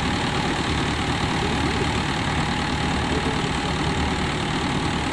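Tractor-driven paddy thresher running steadily while sheaves of rice are fed into it: a continuous, even engine-and-machine drone.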